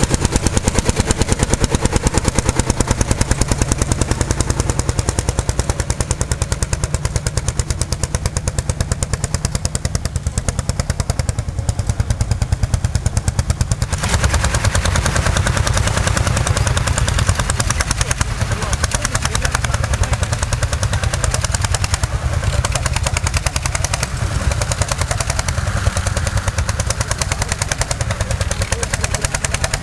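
Lanz Bulldog tractor's single-cylinder hot-bulb two-stroke engine chugging with a rapid, even knock while it pulls a plough under load.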